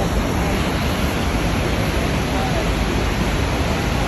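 Steady, loud rushing roar of Niagara Falls' falling water and spray, with faint voices underneath.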